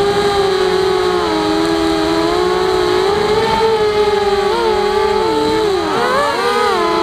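Walkera Rodeo racing quadcopter's electric motors and propellers whining in flight, heard on board, with several pitches drifting up and down as the throttle changes. About six seconds in the pitch dips sharply and then climbs back up.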